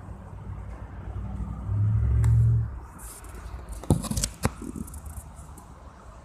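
Low steady rumble of road traffic that swells for about a second near two seconds in, then a quick cluster of sharp knocks and rustles about four seconds in.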